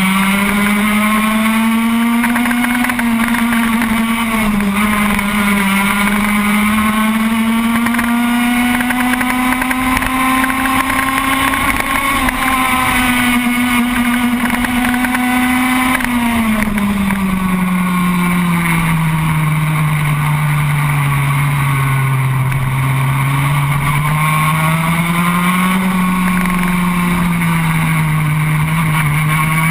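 Racing kart engine running hard on a lap, recorded up close from a camera on the kart. Its pitch climbs and holds through the first half, drops away to its lowest about two-thirds through, then climbs again.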